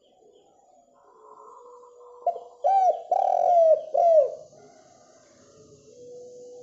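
Spotted dove cooing: one phrase of about four low, hollow coo notes in the middle, the third note the longest.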